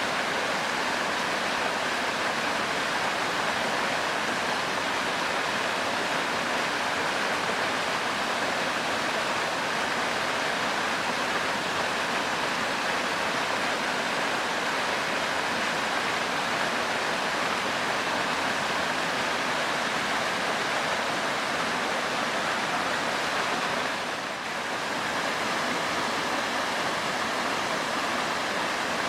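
Waterfall pouring steadily: an even, unbroken rush of falling water, dipping briefly near the end.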